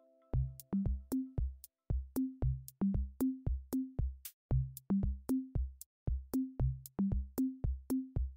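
Background music: a steady electronic drum-machine beat of kick drums and crisp clicks with short bass notes, without the melody.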